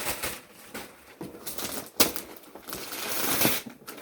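Wrapping paper rustling and tearing as a present is unwrapped, with a sharp click about two seconds in.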